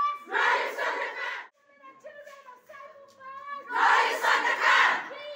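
A crowd of protesters shouting a slogan in unison, twice: once at the start and again a little under four seconds in, with quieter single voices calling between the shouts.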